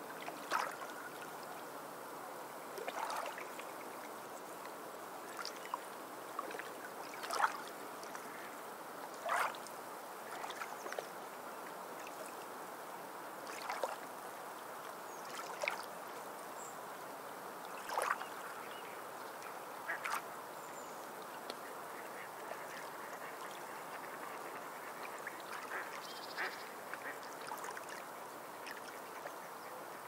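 Small sea waves washing steadily onto a sandy beach, with a dozen or so short bird calls rising above the surf at uneven intervals of one to four seconds.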